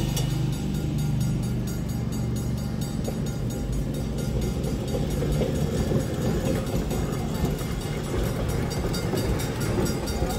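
Electric streetcar rolling through a grade crossing, its wheels on the rails and its running noise building from about halfway through as it comes by.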